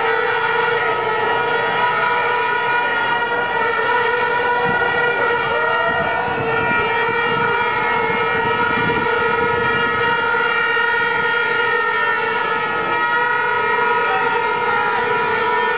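A steady horn-like drone with several overtones held without a break, over the noise of a large marching crowd on a street.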